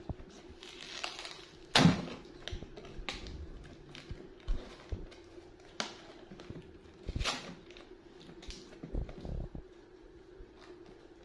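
A small cardboard box of green bean cakes being handled and picked at by small hands: scattered taps, knocks and light rustles, the loudest knock about two seconds in, over a faint steady hum.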